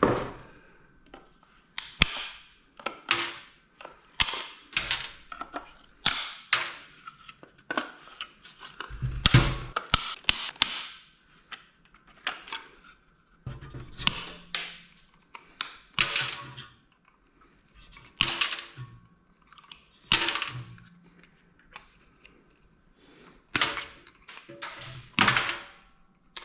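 Irregular series of sharp clicks and metallic clanks, one every second or two, some ringing briefly: computer parts and hand tools being handled as a computer is taken apart for scrap.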